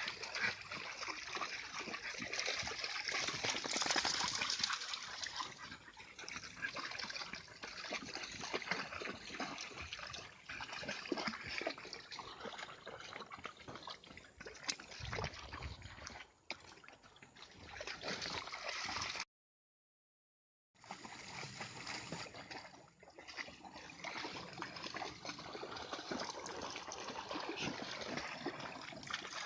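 A shallow stream running, trickling and gurgling steadily, with dogs splashing and wading in the water. The sound cuts out completely for about a second and a half about two-thirds of the way through.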